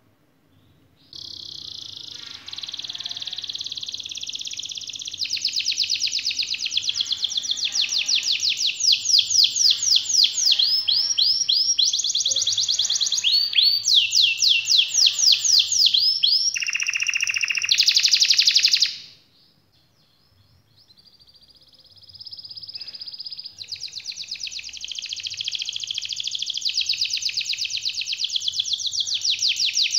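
Red canary singing a long rolling song of fast repeated trill notes, high-pitched and loud. It breaks off for a couple of seconds about two-thirds of the way through, then starts again softly and builds.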